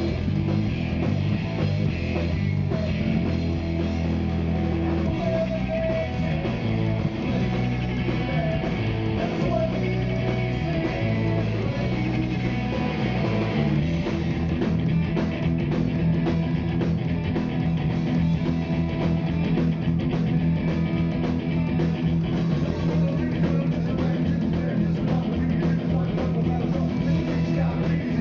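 Live rock band playing loudly: electric guitar, bass guitar and drums. About halfway through, the part changes to a long held note over steady drumming.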